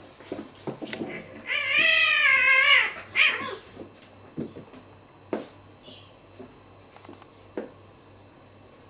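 Two young cats fighting: about a second and a half in, one lets out a loud wavering yowl lasting over a second, followed by a shorter cry. Scattered knocks and clicks of the scuffle sound around it, and it goes quieter after about four seconds.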